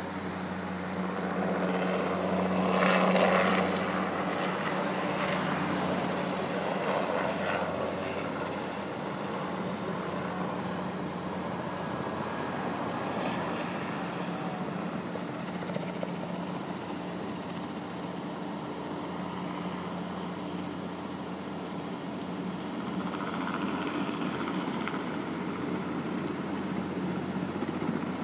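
Helicopter rotor and engine running in flight, loudest about three seconds in and then steadier and fainter as it flies off.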